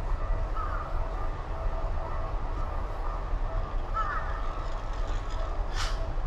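Street ambience: a steady low traffic rumble and a constant hum, with a couple of short chirping calls and one sharp click near the end.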